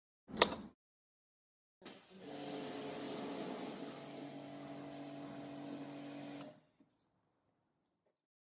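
A sharp click, then an electric pressure washer runs steadily from about two seconds in: a motor hum under a hissing spray. It cuts off suddenly about two seconds before the end.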